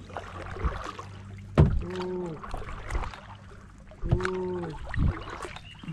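Kayak paddle strokes in calm water: a sharp hit as the paddle goes in, about every two and a half seconds. Each stroke is followed by a drawn-out voice calling "un" to count it.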